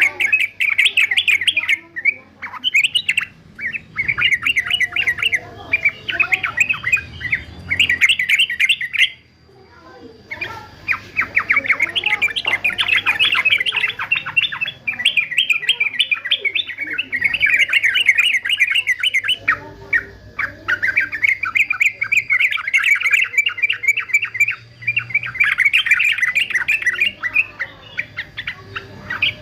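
Male yellow-vented bulbul (trucukan) singing in long runs of rapid, chattering notes, broken by short pauses, the longest about a third of the way in.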